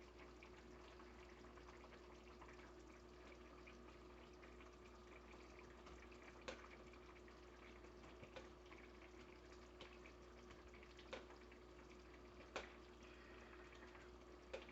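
Curry sauce with fish balls and white radish simmering faintly in a wok: a soft hiss with a small pop now and then, over a steady low hum.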